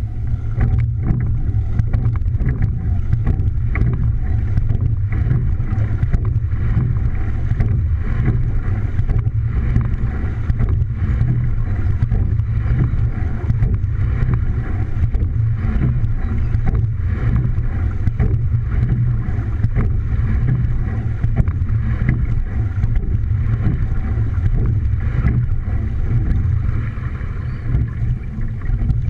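Water rushing along the hull of a racing single scull and wind buffeting the microphone on its bow deck while the sculler rows: a loud, steady low rumble with frequent small knocks.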